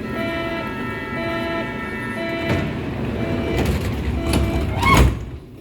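Berlin U-Bahn H-series train sounds: a steady electric whine with a tone pulsing about once a second, then a loud rising squeal about five seconds in.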